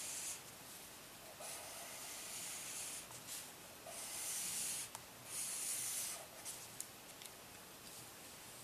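Felt-tip marker nib rubbing across sketchbook paper in a run of long strokes, each about a second long with short pauses between, as a stripe is coloured in. A few light ticks follow after the last stroke.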